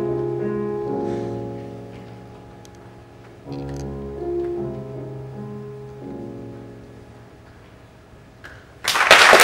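Piano plays two held closing chords over deep bass notes, each fading away. Near the end the audience breaks into loud applause.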